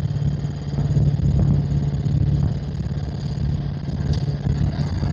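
Helicopter in flight heard from the cabin: a steady drone of engine and rotor with a constant low hum.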